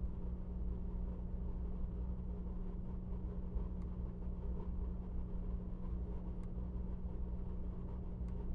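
Steady low hum with a few faint, isolated clicks, typical of a small plastic action figure being handled and posed.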